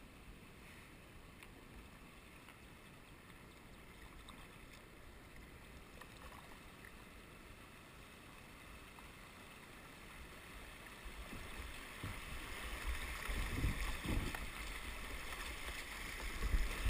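Creek water rushing through a shallow riffle around a kayak. It is faint at first and grows steadily louder over the second half as the kayak runs into the fast water, with a few dull bumps partway through.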